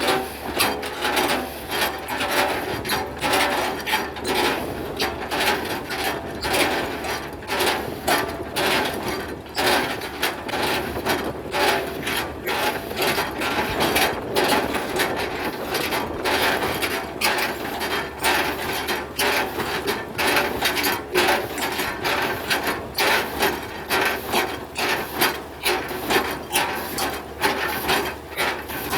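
Hitachi excavator chipping oil palm trunks: a steady low engine hum under a continuous run of sharp, irregular chopping knocks and wood cracking, several a second, as the chipping bucket splits the trunk into chips.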